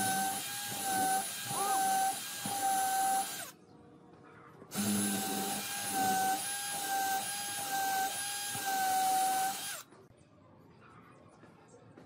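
Cordless drill boring into wood in two runs, the first about four seconds and the second about five, with a steady motor whine. The drilling stops about ten seconds in.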